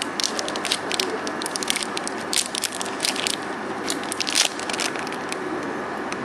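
Foil-laminate sachet crinkling and crackling as it is crushed and squeezed in the hands, over a steady background hum. The crackling stops about a second before the end.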